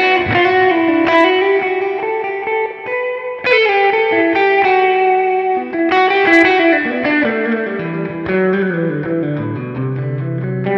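Made-in-Japan PGM Van Zandt TLV-R1 telecaster-style electric guitar played through a Line 6 Pod XT modelling a '65 Marshall JTM-45, set to high gain with chorus, analog delay and plate reverb. It plays sustained, driven lead notes and chords, with hard-picked attacks near the start, about three and a half seconds in and about six seconds in.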